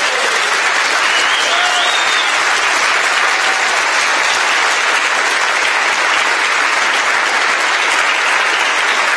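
A large audience applauding, many people clapping in a steady, dense patter that fills the hall.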